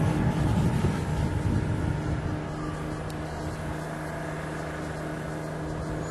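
Small radio-controlled car engine running on the track, a buzzing hum that is louder in the first second or so and then holds at a steady, lower level.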